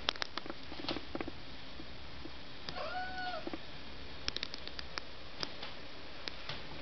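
A house cat meows once, a single short call about halfway through, with scattered light clicks and taps before and after it.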